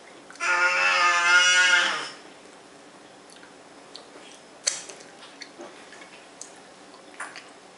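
A person's drawn-out, slightly wavering hummed vocal sound, lasting just under two seconds, then a few small clicks and taps.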